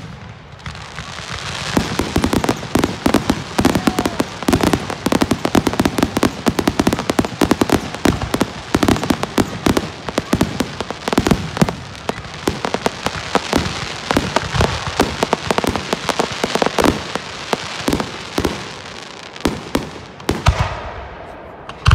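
Fireworks display: a dense barrage of aerial shell bursts, many bangs a second over a continuous crackle, building up about two seconds in and thinning out near the end, with one sharp bang at the very end.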